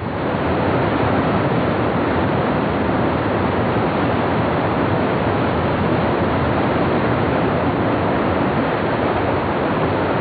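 Whitewater rapids of a fast mountain river rushing over boulders, loud and steady.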